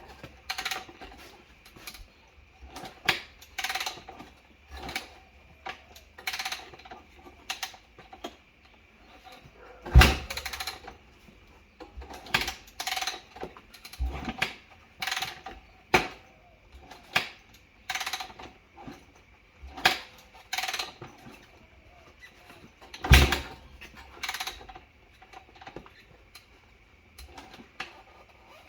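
A Yamaha WR250F's single-cylinder four-stroke engine being kicked over again and again, a thud about every second or so, without catching and running. It is a no-start after a carburettor rebuild that cleared a badly gummed-up jet.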